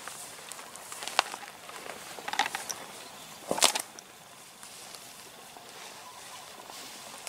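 A few scattered sharp clicks and a brief, louder rustling burst about three and a half seconds in, over a faint steady hiss.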